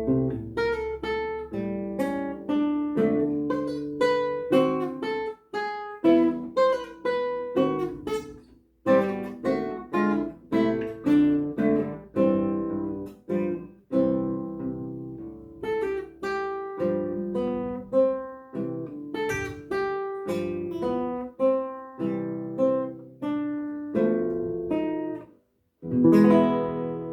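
Classical guitar played solo: a melody of plucked notes over bass notes, each ringing and dying away. Near the end there is a short break, then a loud chord.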